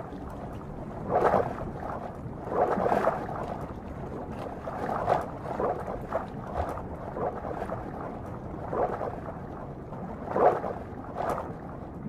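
Water splashing and bubbling as pelicans plunge and thrash in the water, in irregular surges a second or so apart, loudest about a second in, about three seconds in and near ten and a half seconds.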